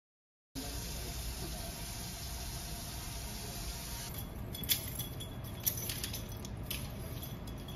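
Silence for half a second, then steady background noise with a low rumble, broken by a few light clicks or knocks between about four and seven seconds in.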